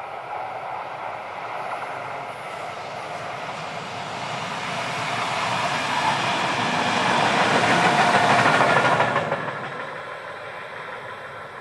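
A train approaching and passing, growing louder to a peak about eight seconds in, then falling off quickly as it goes by.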